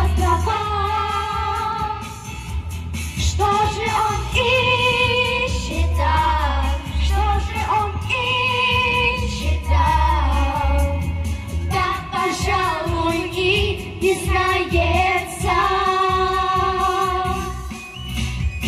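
A children's vocal group singing a pop song in unison into microphones over an amplified backing track with a steady bass beat.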